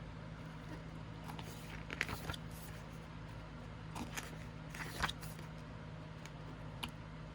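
Pages of an album photobook being flipped and handled: a few short paper rustles and taps, about five in all, over a steady low hum.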